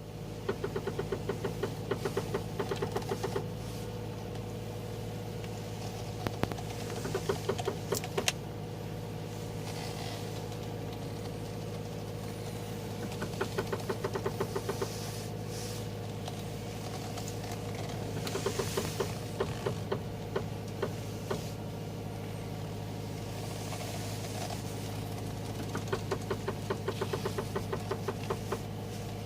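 Lada VAZ-2115 running with a steady engine hum, broken by bursts of rapid knocking, several knocks a second, lasting a few seconds each and coming back about five times. The owner wonders whether the 'crab' bracket is the cause.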